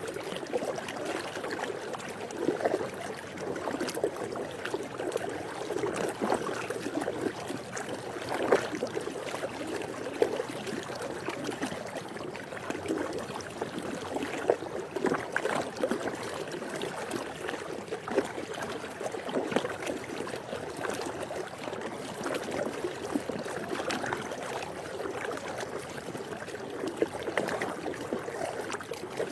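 Swimming pool water lapping and trickling continuously, with frequent small splashes standing out briefly.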